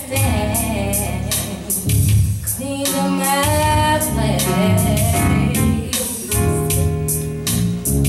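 Woman singing a neo-soul song live into a microphone over a backing of bass and a steady percussion beat.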